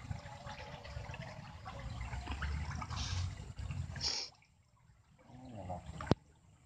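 Water trickling and gurgling in a muddy streamside eel hole. Most of it stops abruptly about four seconds in, and a single sharp click comes about six seconds in.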